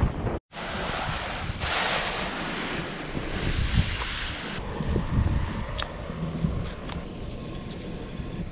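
Wind buffeting the camera microphone: a continuous rushing noise with gusty low rumbling, briefly stronger a second or two in. A few light clicks in the second half.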